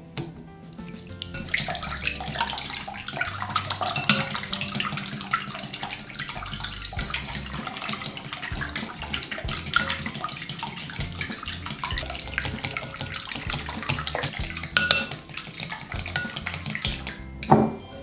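Eggs being beaten with long cooking chopsticks in a glass mixing bowl: rapid clicking of the chopsticks against the glass, starting a second or two in, with a few louder knocks along the way and one near the end.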